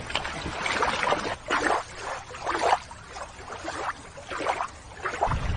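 Shallow water sloshing and splashing in several short, irregular bursts as a toy is put back into the water.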